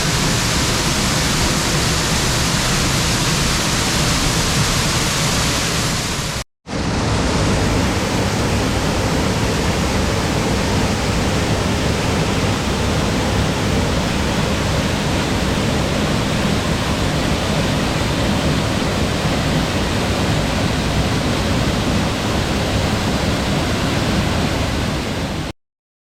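Waterfall, a steady rush of falling water. It drops out for a moment about six and a half seconds in, then resumes, and cuts off abruptly near the end.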